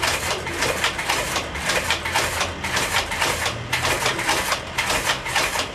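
Rapid, irregular metallic clacking from a two-stage mechanical oscillator as its swinging pendulum rocks the steel lever beam. The motion-powered flashlights mounted on the beam rattle and knock with each swing.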